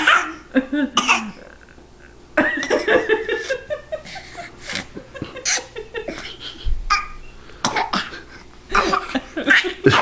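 Bursts of laughter and breathy, cough-like voice sounds from a woman and a baby playing, in several short spells with quieter breathing between.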